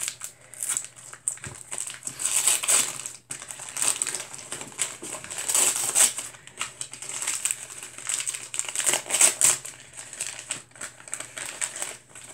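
Gift wrapping crinkling and rustling in uneven spurts as a small present is unwrapped by hand.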